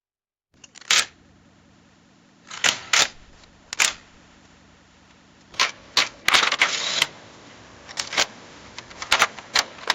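Camera shutter and mechanism clicks: sharp single and paired clicks at uneven intervals, with a short rattling run of clicks about six to seven seconds in.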